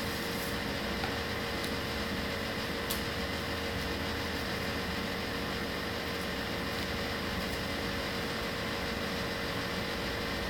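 Steady mechanical room hum, an even noise with a faint held tone in it, like a running fan or air conditioner, with a faint tick about three seconds in.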